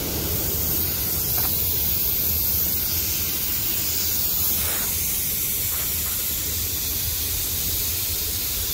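Compressed-air line leaking: a steady hiss over a low, even rumble.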